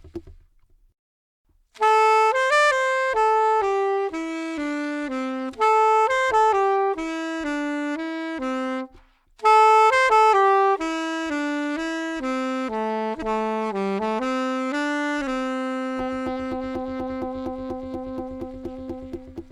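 Saxophone playing a slow, relaxing melody in two phrases of stepping, mostly falling notes, with a short break between them. It settles on a long held note near the end, as a low backing tone comes in underneath.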